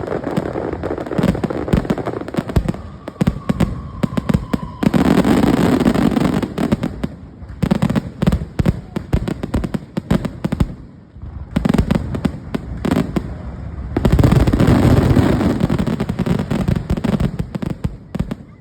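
Fireworks going off in a rapid string of bangs and crackles, building to a dense, loud barrage about five seconds in and another in the last few seconds. A faint whistling tone is heard for about two seconds just before the first barrage.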